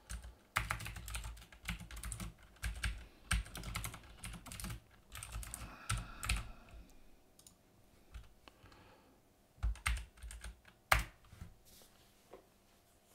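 Typing on a computer keyboard: a quick run of keystrokes for several seconds, then a pause and a few separate key presses.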